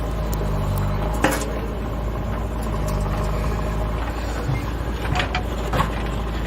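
JCB backhoe loader's diesel engine running steadily, with a sharp knock about a second in and two more around five to six seconds in, typical of the bucket or its load striking.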